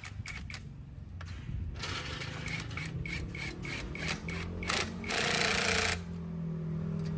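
Cordless impact wrench on a car wheel's lug nuts: a run of clicks and ticks, a loud second of hammering about five seconds in, then the motor humming steadily near the end.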